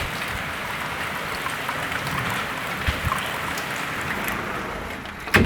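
Steady rain falling, an even hiss with scattered drop ticks. A loud knock near the end.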